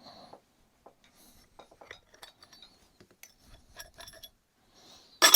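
Small metallic clicks and ticks of hand tools and small bolts being handled, then one sharp metal clink with a short ring near the end.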